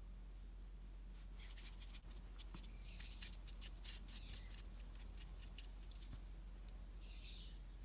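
Hands rolling a ball of polymer clay between the palms: a quick run of dry rubbing swishes for about four seconds. A bird chirps once near the end.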